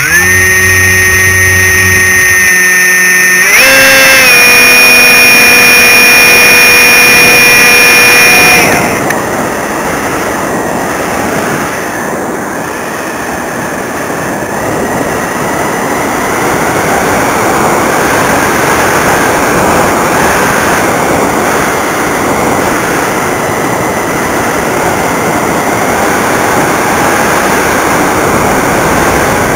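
Brushless electric motor of an RC glider (Turnigy AerodriveXp 35-48, 1100 Kv, on 6S LiPo) whining at high power, its pitch stepping up a few seconds in, then cutting off about eight and a half seconds in. After that, a steady rush of wind over the airframe and onboard camera as the glider glides with the motor off.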